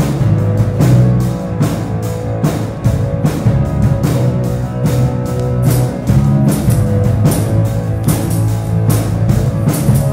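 Live worship band playing a rock-style song with a steady drum beat, electric bass and electric guitar, without singing. Cymbals come in brighter about halfway through.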